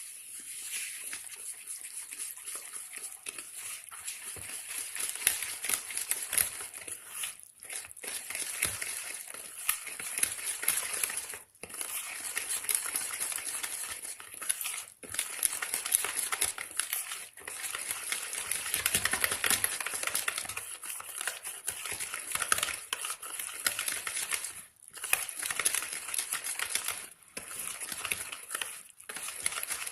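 Eggless chocolate cake batter of flour, sugar, milk, curd and oil being stirred by hand in a mixing bowl: a continuous wet scraping and sloshing, with brief pauses every few seconds.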